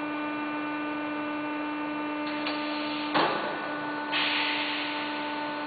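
Macri Provar 5-90 UD double-tube bending machine running with a steady hum of several fixed tones. About three seconds in comes a sudden clunk, and about a second later a hiss that lasts almost to the end.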